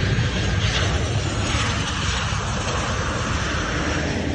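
Jet engines of a Boeing 737-700 BBJ on final approach and landing, a loud, steady roar that comes up sharply at the start and then holds.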